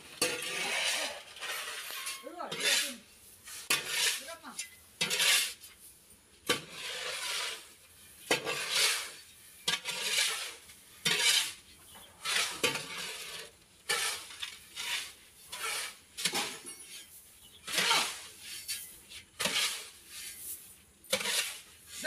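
Metal hand shovels scraping across a concrete floor and tossing a heap of mixed granular fertilizer (urea, complex and DAP), the granules hissing and rattling as they land. The strokes come irregularly, about once a second.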